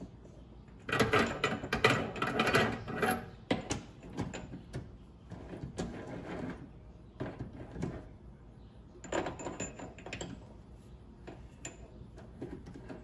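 Metal tools and parts being handled at a mini lathe with the motor off: clusters of clicks, clinks and rattles, a busy burst about a second in and another around nine seconds, with scattered single clicks between.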